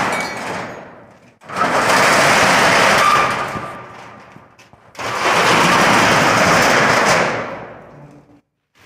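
Corrugated steel rolling shutter being rolled down and pushed back up by hand, its slats rattling loudly as it runs. There are two long runs of about two seconds each, after the fading end of an earlier one.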